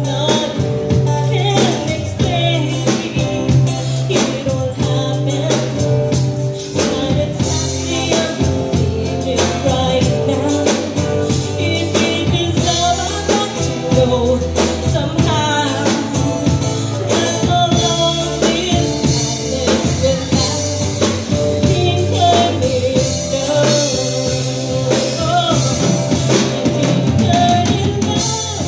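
A live band playing a song, with women singing lead into microphones over a drum kit.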